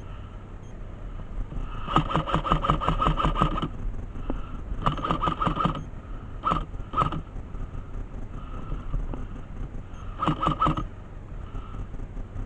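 Airsoft gun firing bursts of rapid shots: a long burst about two seconds in, a shorter one around five seconds, two single shots near seven seconds, and another short burst near ten seconds.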